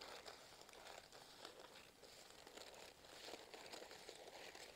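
Faint snipping of scissors cutting through thin tissue paper, with the sheet rustling and crinkling as it is handled.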